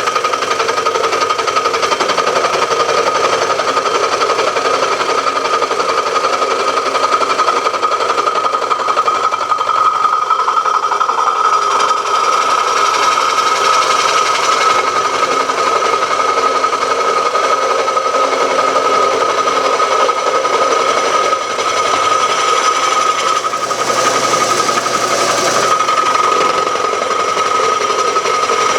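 Milling machine taking a pass with a milling cutter through the cast iron bottom of a Briggs & Stratton Model Q engine casting, a steady high whine of the cutter in the iron.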